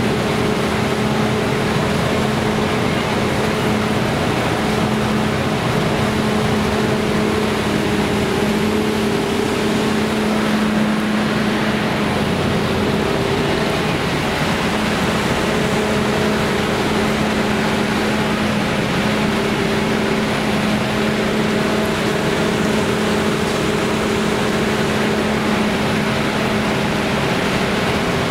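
Fairground ride machinery running: a steady rushing noise with a low droning hum and a fainter hum an octave above it, unchanging throughout.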